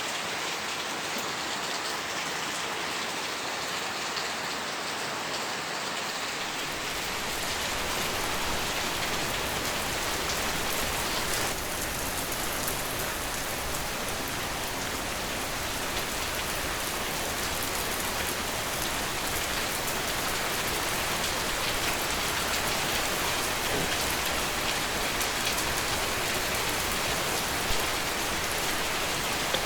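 Steady rain falling, an even hiss of many drops; about six seconds in the sound grows fuller and deeper as the low end fills in.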